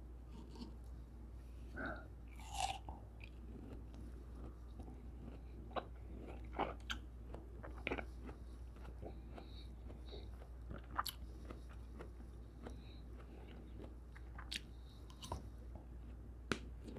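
Chewing soft cantaloupe: quiet wet mouth sounds with scattered smacks and clicks, a handful of them louder, over a faint steady low hum.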